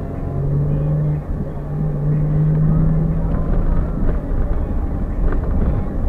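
Car driving, heard from inside the cabin: steady low engine and road rumble, with an even engine hum held for the first three seconds or so and a couple of light knocks in the second half.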